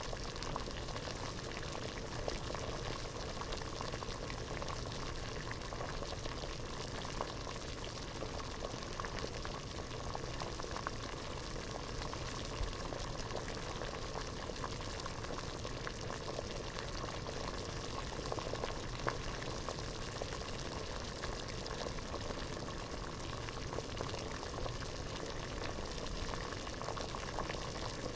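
Water boiling hard in a pot: a steady bubbling hiss full of small popping bubbles.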